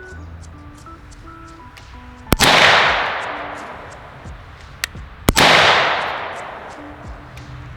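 PSA AK-103 GF3 rifle in 7.62×39 firing twice, about three seconds apart. Each shot has a long echoing tail.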